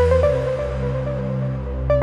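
Background electronic music: a synth melody of short held notes over a sustained bass.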